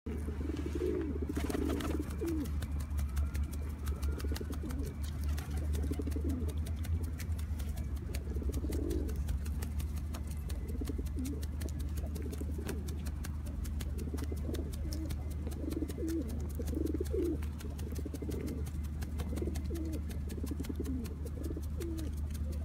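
Feral pigeons cooing again and again in low, repeated calls, over a steady low rumble and a stream of faint clicks.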